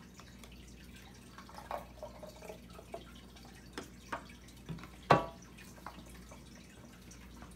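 Thick fruit smoothie pouring from a blender jar into a wine glass: faint scattered drips and plops, then one sharp knock about five seconds in as the jar is set down on the glass tabletop.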